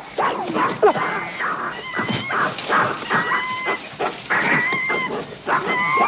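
Chimpanzees screaming in a rapid series of short, shrill calls during a male's charging display, the aggressive show of force a male uses to intimidate rivals and raise his rank.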